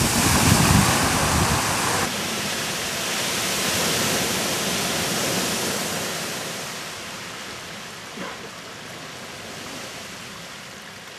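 Great Fountain Geyser erupting: a steady rushing and splashing of hot water jetting up and falling back. It drops suddenly about two seconds in, then fades over the next few seconds as the burst dies down to steam.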